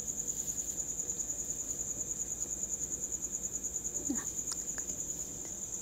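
A high-pitched insect trill, steady and rapidly pulsing throughout.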